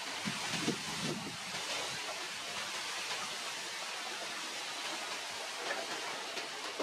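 Steady hissing outdoor background noise, with a few soft low rustles in the first second and a half.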